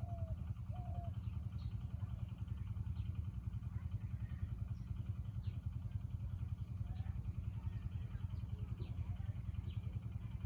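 A small engine running steadily with a rapid, even low throb. A few short bird chirps sound over it.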